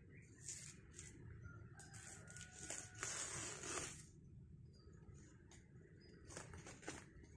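Dry outer sheath of a felled banana trunk being pulled and torn off by hand: faint rustling and tearing, with the longest tear about three seconds in lasting about a second and shorter ones near the start and near the end.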